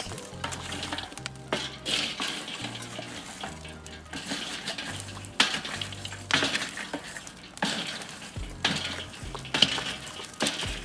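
Charcoal fire in a kettle grill crackling as a wooden board is swung back and forth over it to fan it, each swing a whoosh of air. Background music with a deep bass line plays underneath.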